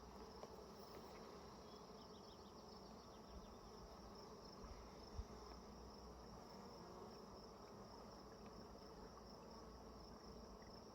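Faint, steady buzz of a honeybee colony around an open hive, with one soft knock about five seconds in.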